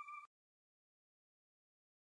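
Near silence: the faint tail of a ringing electronic chime from the outro end card fades and cuts off about a quarter second in, followed by dead digital silence.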